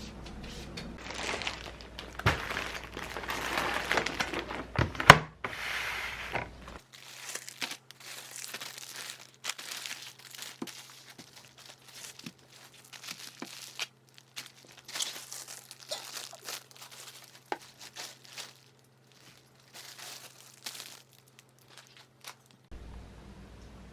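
Crinkling and rustling of something being handled, like paper or plastic wrapping, with a sharp click about five seconds in, then many scattered light clicks and taps.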